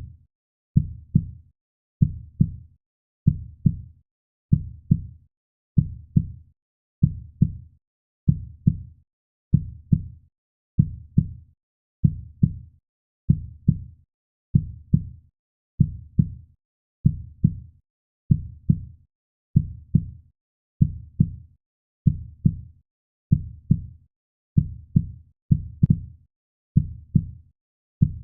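Heartbeat sound: a steady, slow lub-dub, each beat a pair of low, deep thuds, repeating a little under once a second without change.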